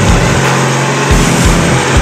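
Diesel engine of a modified pulling tractor running hard at high, steady revs under full load while it drags the sled, its exhaust stacks putting out black smoke.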